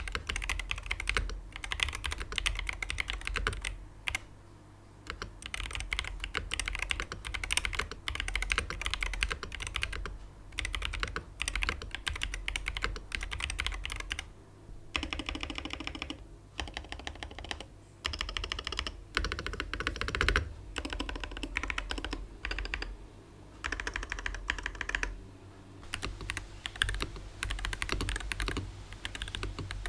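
Typing on a keyboard with Hall-effect magnetic switches: runs of keystrokes broken by short pauses. The keystroke sound changes about halfway through, in a typing-sound comparison of SQUISHE switches against TTC Magnetic Pro switches.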